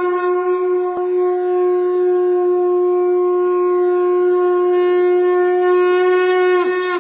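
A conch shell (shankh) blown in one long, steady note that dips in pitch as it dies away near the end.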